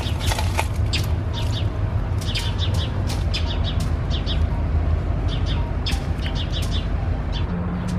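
Small birds chirping repeatedly in short high calls over a steady low rumble.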